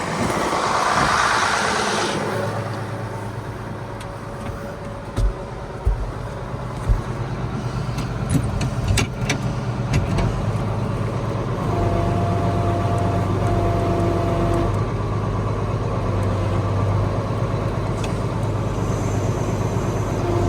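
Case IH tractor's diesel engine running steadily under load as it tries to back the mud-plugged disk, with scattered knocks and clunks. About halfway through, two short steady tones sound one after the other.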